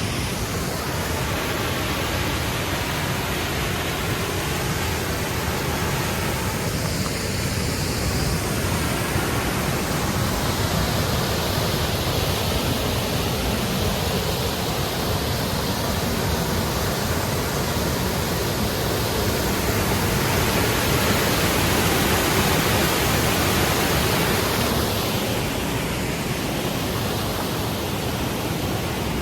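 Steady rushing of creek water over rocks, swelling a little louder midway and easing off near the end.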